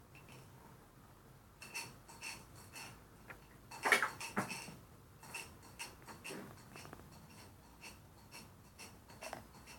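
Scattered light rustles and clicks, loudest about four seconds in: a kitten's paws on a sheet of paper lying on carpet, and a small plastic bucket of toy mice being handled.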